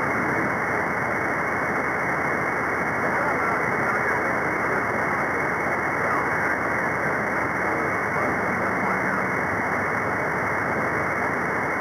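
Steady receiver static from an SDR tuned to the CB free band above channel 40, heard through a narrow filter so it sounds muffled with nothing above the voice range. Faint voices of distant skip stations barely show through the noise.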